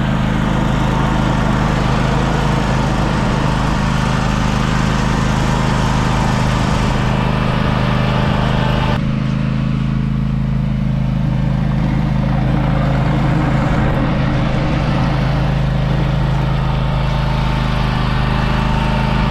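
John Deere X570 garden tractor engine running steadily at a constant speed, with a rushing hiss over it that eases about halfway through.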